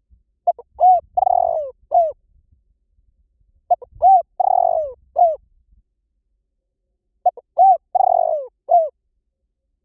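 Spotted dove cooing: three identical phrases a few seconds apart, each made of short opening notes, a longer falling coo and a short closing note. It is a lure call for drawing wild doves to a decoy.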